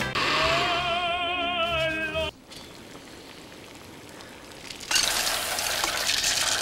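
A long operatic sung note with a wide vibrato that cuts off about two seconds in. After a stretch of faint hiss, a loud, even rushing hiss starts about five seconds in, matching flour poured from a measuring cup into a steel stockpot.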